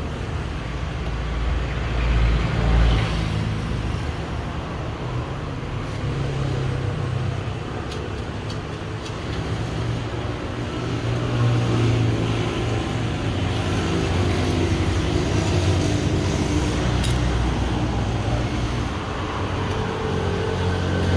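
Motor vehicle engine running, with road traffic noise around it. The hum rises and falls a little, louder around two to three seconds in and again from about eleven seconds on.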